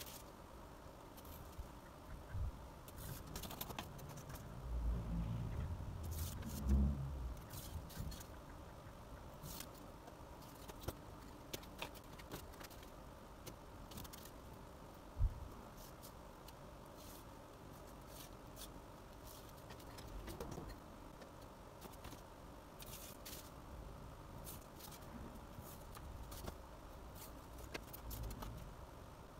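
Foam board being cut and handled on a cutting mat: light scratching and scattered clicks from a craft knife and steel ruler. A few dull thumps come around five to seven seconds in, and one sharp knock about fifteen seconds in.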